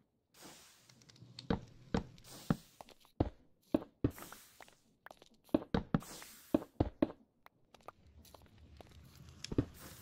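A string of irregular knocks and clicks, loosely spaced and bunched in the middle, mixed with short bursts of hiss-like rustling noise; no whistle tone sounds.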